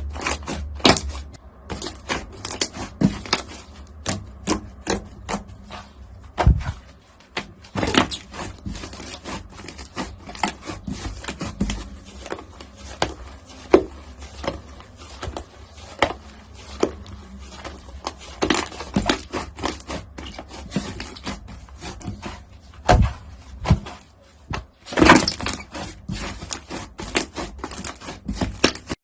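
Crunchy slime being squeezed and pressed, making a dense, irregular stream of small crackles and pops, with a louder burst of crackling about 25 seconds in.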